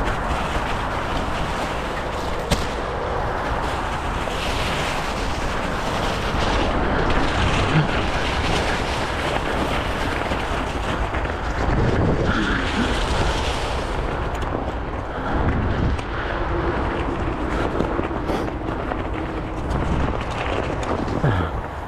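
Mountain bike ridden fast down a leaf-covered dirt trail: tyres rolling over leaves and earth, with scattered knocks and rattles from the bike over bumps. Steady wind rumble on the action camera's microphone.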